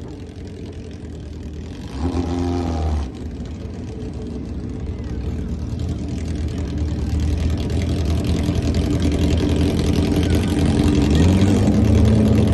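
Vehicle engine at a drag strip: a short loud rev about two seconds in, then engine sound growing steadily louder, with rising pitch near the end as it accelerates.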